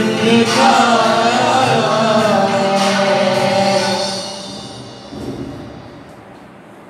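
Sung Christian worship music that fades out about four to five seconds in, leaving only faint room noise.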